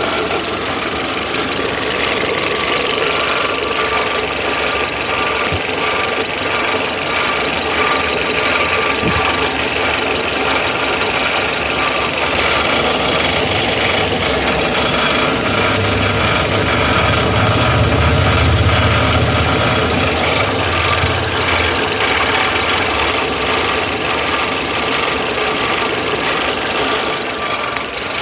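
Peugeot 307 SW with its AL4 automatic gearbox and drive axles turning, making a strange continuous mechanical noise. The owner finds it occurs only when the wheels are moving, driven or coasting, and rules out the valve cover and the belts. A deeper hum swells up for several seconds past the middle.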